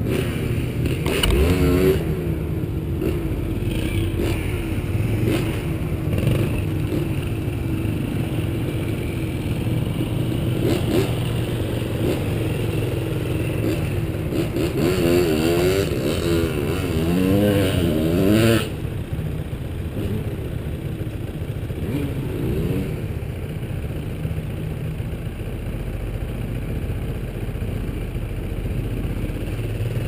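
Dirt bike engines: one idling steadily, while another is revved up and down several times about halfway through as a rider climbs out of a river crossing. The revving cuts off suddenly about two-thirds of the way in.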